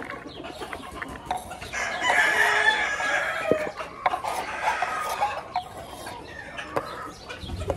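Gamecocks crowing and clucking; one long crow about two seconds in is the loudest sound. Short clicks and scrapes of a knife blade pushing diced carrots off a wooden cutting board into a plastic bowl come and go.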